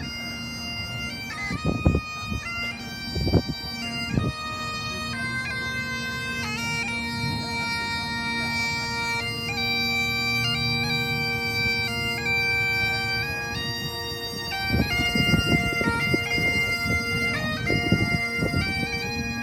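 Bagpipes playing a melody over their steady drones, the tune moving from note to note every second or two. A few brief low thumps come early on, and a run of low rumbling knocks about three-quarters of the way through.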